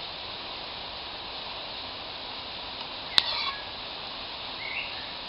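A single sharp clink a little past halfway, a metal spoon knocking the mess tin, amid a few short bird chirps over a steady hiss.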